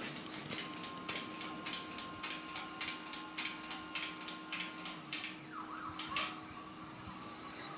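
Stepper motors of a delta 3D printer moving its arms through a simulated print, a steady whine with a rapid series of ticks at about three a second over a low hum. The whine stops about five seconds in, followed by a few louder clicks.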